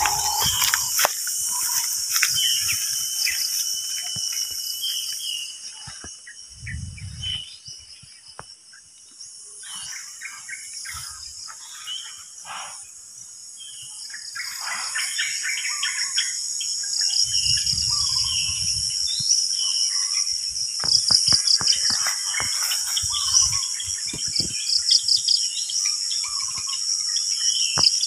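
A high-pitched, pulsing chorus of insects that dips quieter for several seconds in the first half, then swells back louder. Scattered short bird chirps sound through it, with two brief low rumbles early on and again past the middle.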